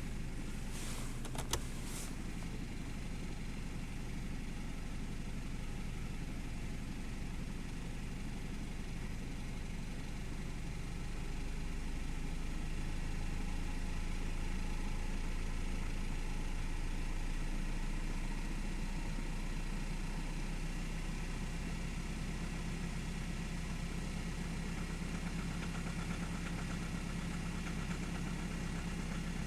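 BMW N46B20 2.0-litre four-cylinder petrol engine idling steadily, with a few light clicks near the start. Its level rises slightly about 11 s in, and its note changes around 21 s.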